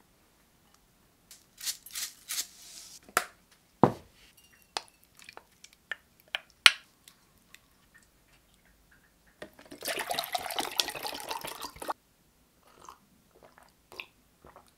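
Food and tableware being handled: scattered light taps and clicks, one sharp thud about four seconds in, and a steady noisy sound lasting about two seconds near ten seconds in.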